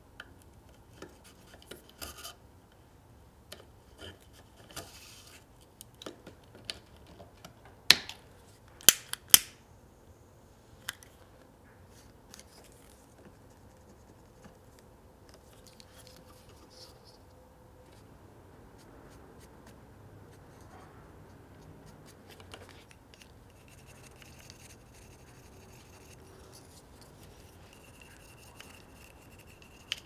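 Close-up handling of a stitched leather camera-strap tab and its anchor clip: scattered small clicks and scratches, with three loud, sharp clicks within about a second and a half, about eight seconds in.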